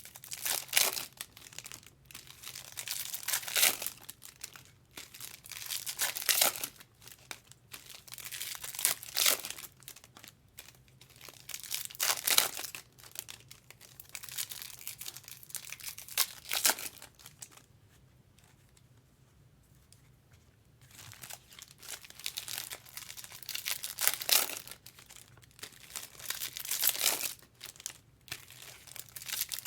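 Foil trading-card pack wrappers being torn open and crinkled, in irregular bursts of rustling, with a quiet stretch of a few seconds past the middle.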